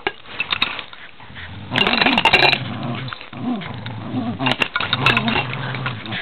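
Dogs play-growling during a tug-of-war game, a low rumbling growl that comes in bursts, loudest about two seconds in and again near the end, with a few sharp clicks.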